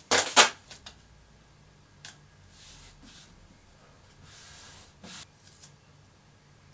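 Adhesive tape pulled off the roll in a few quick rips in the first half second, then soft rubbing as hands press the tape down onto the wooden boards. The tape holds the mitred pieces together so they fold like a hinge for gluing.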